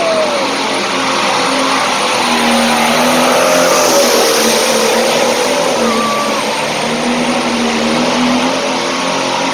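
A hot farm class pulling tractor's engine running hard at full throttle, a loud steady roar with a thin high whine over it, as it pulls the sled down the track.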